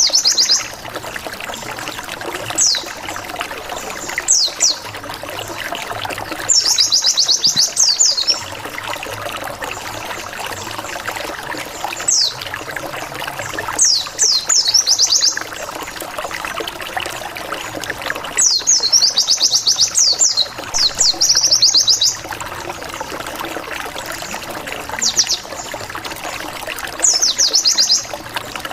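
White-eye (pleci) song used as a lure: bursts of rapid, high, falling 'wit wit wit' notes every few seconds, some runs lasting a second or more. A steady trickle of running water plays underneath.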